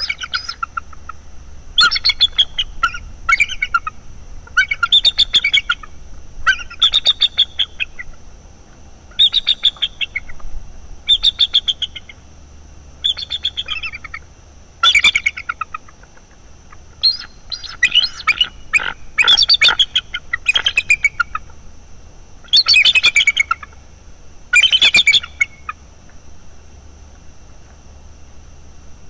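Bald eagles' high chattering calls: about a dozen bursts of rapid piping notes, one every couple of seconds, stopping a few seconds before the end. They are alarm calls at an intruding young eagle in the nest tree.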